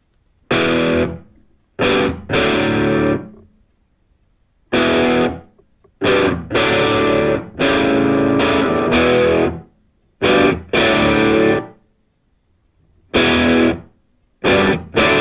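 Background music: distorted electric guitar chords played in short stop-start bursts, each cut off sharply, with brief silences between them.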